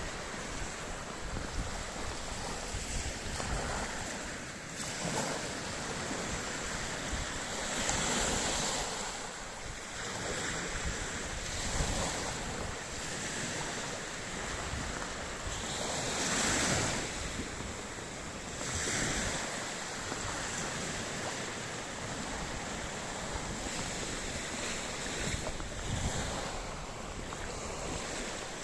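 Sea waves breaking and washing on the shore, the surf swelling and easing every few seconds, with wind buffeting the microphone.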